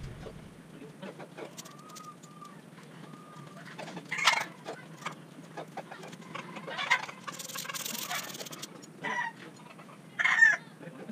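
Chickens clucking and calling in short bursts, the loudest about four seconds in and again near the end, over light clicks and taps.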